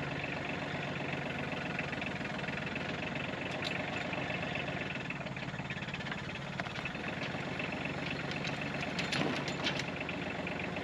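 Kubota compact tractor's diesel engine running steadily while its front-end loader works, with a few light knocks about nine seconds in.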